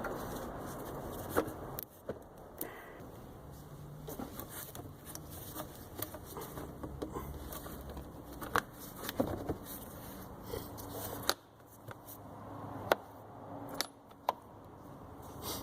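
Air intake hose and plastic air cleaner parts being handled and worked loose by hand: scattered sharp clicks and light rattling and scraping, the loudest click about 13 seconds in.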